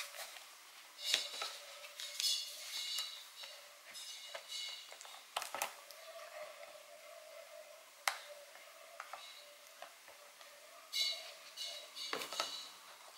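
Small clicks, taps and scrapes of fingers handling a laptop's replacement screen panel while fitting its display cable connector, with a few sharper clicks about five, eight and twelve seconds in.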